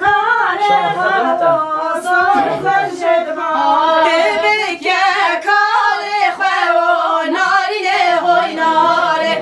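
Women singing a Kurdish song together, unaccompanied, their held notes wavering and ornamented.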